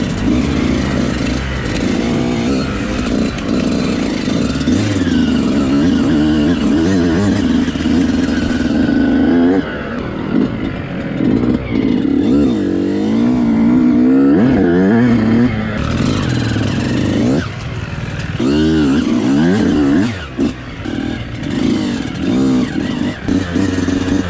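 Yamaha YZ125 two-stroke dirt bike engine revving up and down while being ridden, its pitch rising and falling again and again, running on its freshly rebuilt engine.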